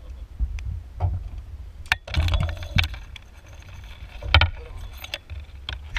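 Knocks and clatter on a small aluminium boat's hull, the loudest about four and a half seconds in, over a low wind rumble on the microphone.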